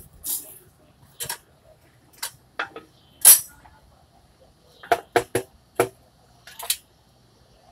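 Sharp metallic clinks and clanks from an engine hoist's rigging as a Ford 7.3 engine is lowered into the truck. There are about ten separate knocks, with the loudest about a third of the way in and a quick run of four a little past the middle.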